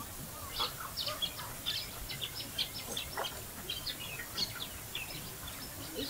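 Birds chirping and calling in many short, irregular notes.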